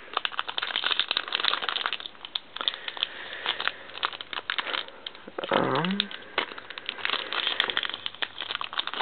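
Foil wrapper of a Pokémon trading card booster pack crinkling and crackling as it is handled and worked at to open it, in a dense, irregular run of crackles.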